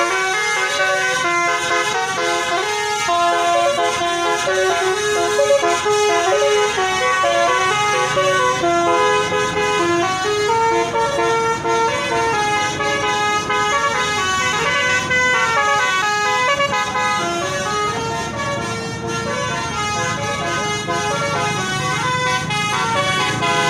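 A telolet bus horn, a multi-tone musical horn, playing a tune of overlapping tones that step up and down in pitch, with a low rumble underneath from about a third of the way in.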